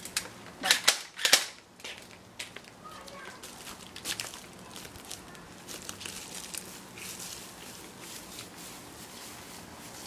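Toy foam-dart blaster being handled and cocked: a few sharp plastic clacks, three loud ones close together about a second in, then fainter scattered clicks and rustling.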